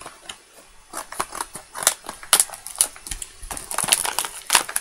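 Plastic toy packaging being pulled and pried at by hand, crinkling and crackling in irregular clicks that get busier about halfway through, as it resists opening.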